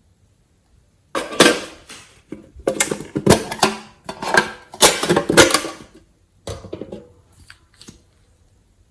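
Slime being squeezed and kneaded by hand, making a run of wet, crackly squishing bursts, each about half a second to a second long, with a few fainter ones near the end.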